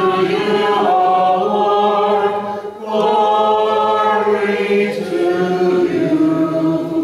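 Many voices singing unaccompanied Byzantine chant together. It is the sung response that closes the Gospel reading, with a short break about three seconds in, and it fades out near the end.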